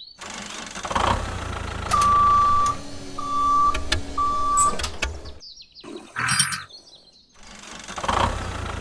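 Tractor engine running while three reversing-alarm beeps sound in a row as the tractor backs up; the engine sound breaks off briefly about five seconds in and then resumes.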